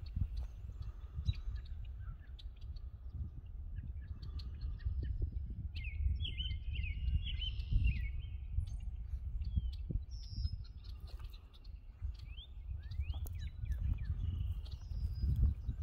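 Birds chirping and calling in short bursts, a cluster about six to eight seconds in and more near the end, over a steady low rumble of wind on the microphone and light footsteps in grass.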